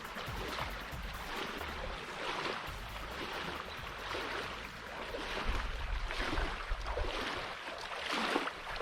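River water splashing and lapping around a kayak in repeated swishes about once a second, with a low rumble of wind on the microphone.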